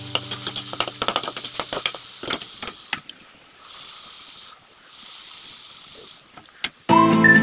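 Spoon and potato pieces clicking and knocking against a frying pan as boiled potatoes are added to a tomato masala, followed by a soft sizzling hiss. Background music fades out at first and comes back loudly with a whistled tune near the end.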